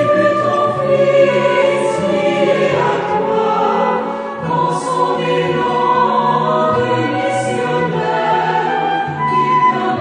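Choir singing slow, sustained phrases of sacred music.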